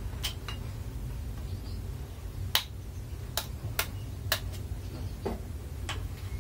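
Kitchen utensils clinking and tapping against a glass jar and the counter: about eight separate sharp clicks, the loudest three around the middle, over a steady low hum.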